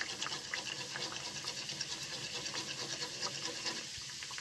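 Gujiyas frying in hot ghee in a kadhai: a steady soft sizzle full of tiny crackles, the gentle bubbling of frying on a low flame.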